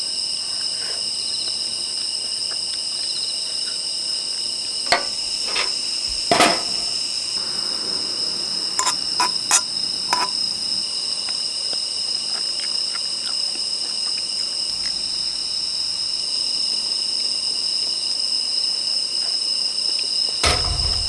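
Steady chorus of crickets chirring at several high pitches. A few light metal clicks of tongs against a pot and cup break in, the sharpest about six seconds in and a cluster around nine to ten seconds.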